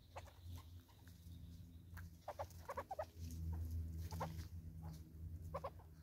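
Southern red-billed hornbills clucking in short groups of notes, a cluster about two seconds in and a pair near the end, with light taps as their bills peck seed on a wooden stump.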